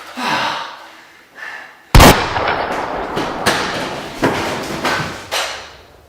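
A sudden very loud blast about two seconds in, then three more blasts about a second apart, each trailing off, with a fainter one near the start.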